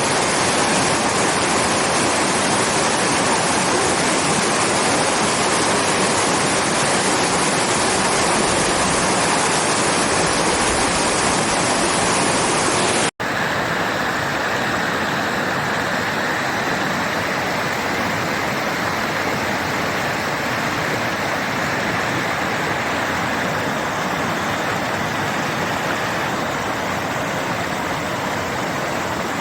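Heavy falling water of a waterfall, a steady, loud rush. About halfway through it cuts abruptly to a second waterfall recording with a duller, less hissy sound.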